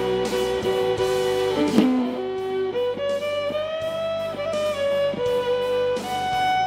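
Electric violin playing a melody of long bowed notes, with a quick slide down and back up about two seconds in, then stepping up to higher held notes. It plays over a recorded backing track with guitar and a steady beat.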